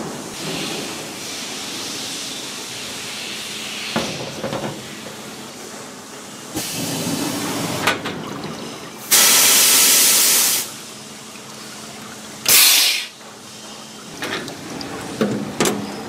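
Compressed air hissing in sudden blasts, the loudest lasting about a second and a half and another short one about three seconds later. This is the air line that pressurises aluminium car air-conditioning condensers for an underwater leak test.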